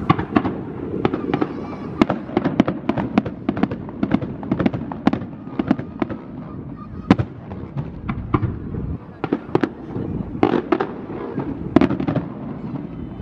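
Aerial firework shells bursting in quick, irregular succession, several sharp bangs a second over a low rumble.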